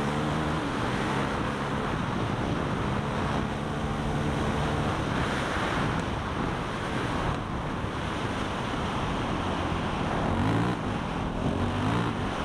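Off-road vehicle engine running hard, its pitch rising and falling as the throttle opens and closes, with wind noise on the microphone.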